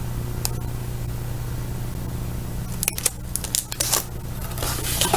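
Sharp clicks and rustling of a pen and its packaging being handled, bunched together about three seconds in and again near the end, over a steady low hum.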